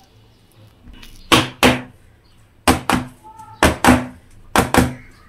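Steel plate (thali) holding freshly spread sesame-peanut-jaggery mixture being tapped to settle and level it: sharp knocks in pairs, four pairs about a second apart.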